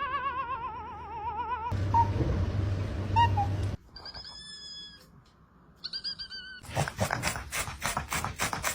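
Cat vocalisations edited back to back: a long, high, wavering yowl, then a noisy stretch with a low hum and faint high-pitched calls, and near the end a rapid pulsing sound, about six pulses a second.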